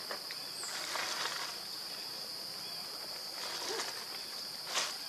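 Steady high-pitched drone of insects, with bursts of rustling and crinkling as a baby macaque clambers on a plastic bag of fruit; a sharper crackle comes near the end.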